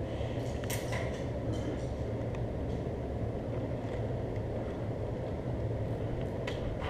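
Steady low rumble, with a few faint clicks about a second in and again near the end.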